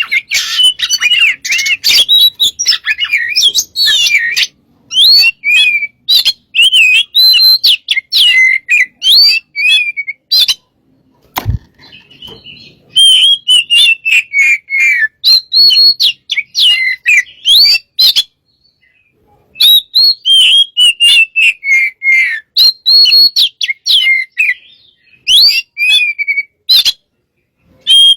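Oriental magpie-robin singing loudly in a fast, unbroken run of varied whistled and chattering phrases, with two short breaks, about ten and eighteen seconds in. A single sharp click falls in the first break.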